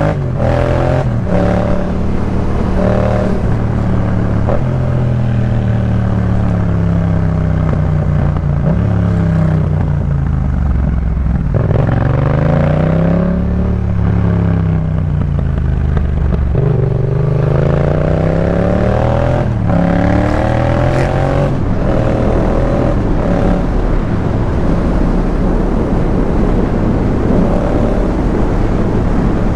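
Yamaha MT-07's parallel-twin engine through a Jeskap K4 full exhaust, ridden through the gears: its pitch climbs under acceleration several times and drops back between pulls. Near the end it holds steadier, with more rushing noise.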